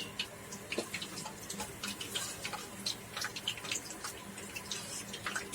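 Fish pieces deep-frying in hot oil: steady sizzling with many irregular sharp crackles and pops.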